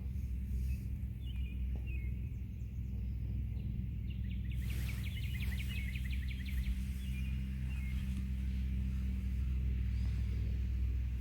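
Steady low rumble outdoors with a small bird calling over it: a few scattered chirps, then a fast trill of quickly repeated notes lasting about two seconds, about halfway through.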